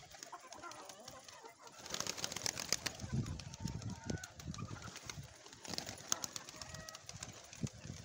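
Domestic pigeons flapping their wings as they take off and fly, a scattered clatter of quick wing beats.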